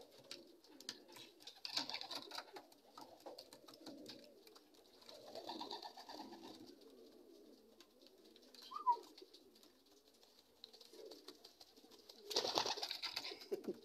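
Racing pigeons cooing softly. Near the end comes a short loud burst of wing flapping close to the microphone, from a pigeon fluttering up beside it.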